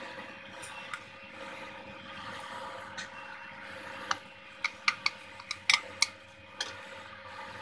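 A wooden spatula knocking and scraping in a metal pot as it pushes garlic cloves around in a little hot oil: about nine sharp clicks and taps come between about four and six and a half seconds in. A steady hiss runs underneath.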